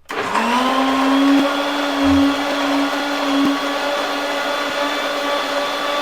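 Electric mixer grinder switched on, its motor spinning up within a fraction of a second to a steady whine as it blends mango, milk, sugar and ice into a milkshake.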